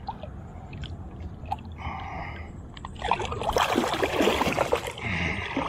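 Tarpon thrashing and splashing at the surface while held by the jaw at the boat's side for release. The water sloshes quietly at first, then a loud burst of splashing about three seconds in lasts around two seconds.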